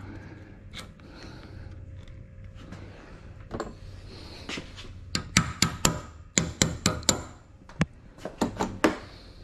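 A quick run of sharp metal clinks and knocks, about a dozen over four seconds starting about five seconds in, some ringing briefly: tools and small parts handled on a metal work cart. Before it, only a faint steady low hum.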